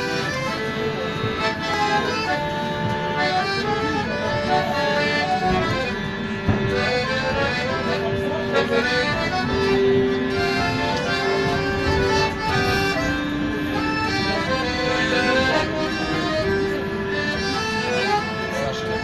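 Piano accordion playing a tune: a melody of held notes over a steady chordal accompaniment, without a break.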